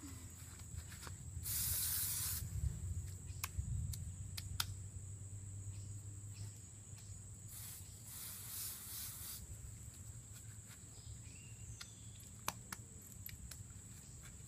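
Garden hose spray nozzle spraying water onto a dog's coat in bursts: a loud burst about two seconds in and a longer one around eight seconds, with a few sharp clicks between.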